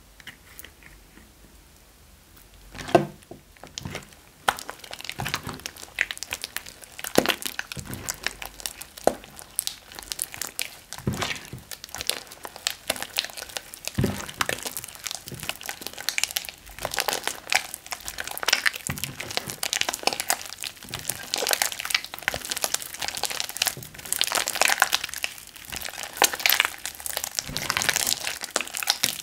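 Thick, wet slime mixed with small foam balls being kneaded and stretched by hand: irregular sticky crackling and crunching, sparse for the first few seconds, then dense and continuous.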